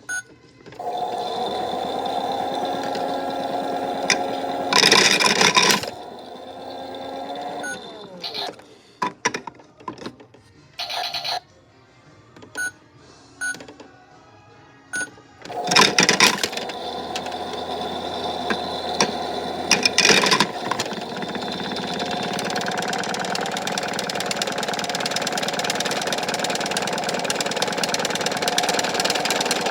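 Toy washing machine running with a power brick inside: its small motor whirring, with electronic chimes and clicks, and several loud bursts of noise as the load tumbles. After a quieter, clicking stretch it runs steadily again, slowly getting louder near the end.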